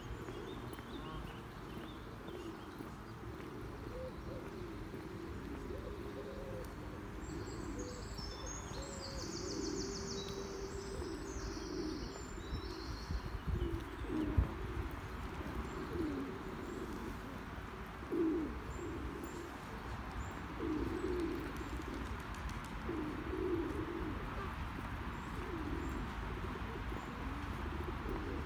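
Feral pigeons cooing over and over, with a small bird's high chirping heard briefly about a third of the way in.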